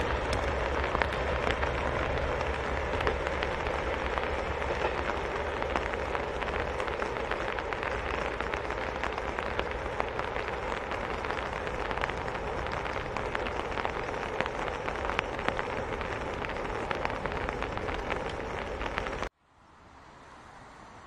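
Steady rain with a dense spatter of drop ticks. The diesel rumble of a KiHa 40 railcar pulling away fades out in the first couple of seconds. Near the end the sound cuts suddenly to a much quieter steady hiss.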